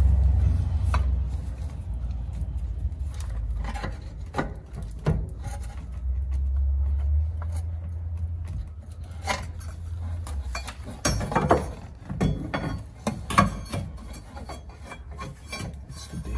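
Pry bar scraping and clicking against the inner CV joint as the CV axle is levered out of the transmission: irregular metal knocks and scrapes, busier in the second half, over a steady low hum.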